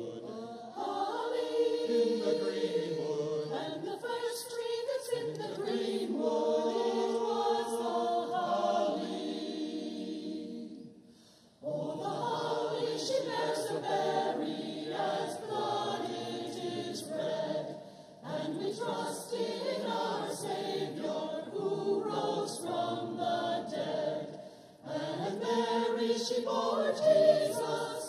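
Church choir singing a Christmas carol, phrase by phrase, with a brief near-silent pause about eleven seconds in and shorter breaks later.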